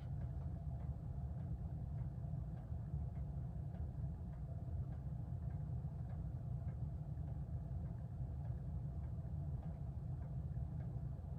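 Mid-1980s Litex CloseUp hugger ceiling fan running on high: a steady low motor hum with a faint tone above it and light ticks every second or so.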